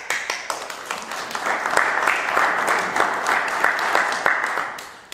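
Audience applauding, building over the first second or two and dying away near the end.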